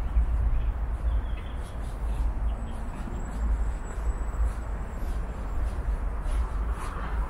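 Outdoor ambience on a walk through a park: a steady low rumble, with a faint high bird call held for a couple of seconds about three seconds in.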